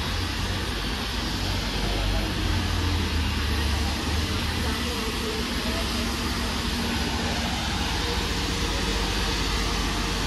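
Train of heritage passenger carriages rolling slowly past a station platform: a steady low rumble with a wash of running noise.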